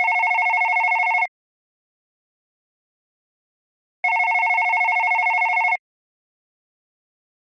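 Modern landline telephone ringing with an electronic trill: a ring ends about a second in, and a second ring of just under two seconds comes about four seconds in, with silence between.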